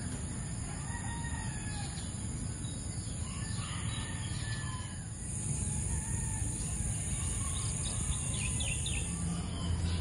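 Roosters crowing, one call after another, over a steady low background rumble, with a few short high chirps near the end.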